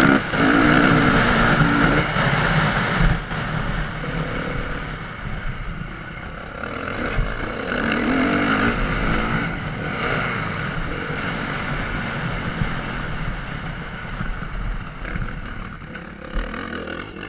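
Dirt bike engine being ridden on a motocross track, its revs climbing and dropping with the throttle, easing off near the end.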